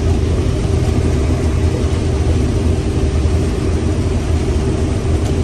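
Heavy farm machine engine running steadily at constant speed, a loud even drone with a low hum.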